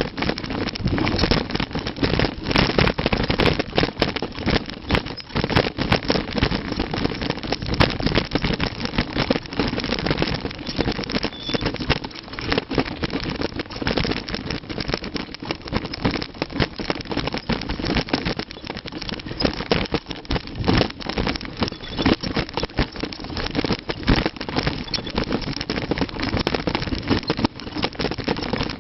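Mountain bike rattling and clattering down a rough trail: a constant rush of noise full of rapid knocks and clicks from the bike jolting over the ground.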